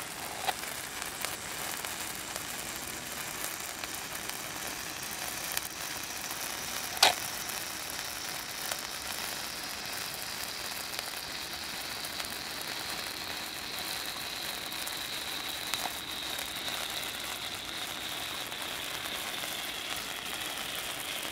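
Nico ice fountain (cake fountain) burning steadily, with a hissing, sizzling spray of sparks. A faint high whine sinks slowly in pitch through it, and there is a single sharp crack about seven seconds in.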